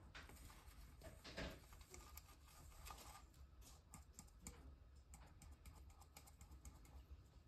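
Faint, quick light ticking of vermiculite granules sprinkled from a container onto the potting soil of a seedling pot, with a brief handling rustle about a second and a half in.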